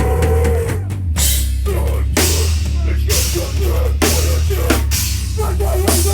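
Live heavy metal band playing loud: distorted guitars and bass over a pounding drum kit with heavy bass drum and crashing cymbal hits.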